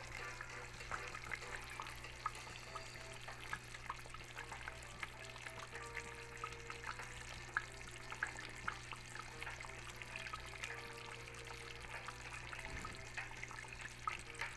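A pot of meat stew simmering, its thick sauce bubbling with scattered small pops over a steady low hum.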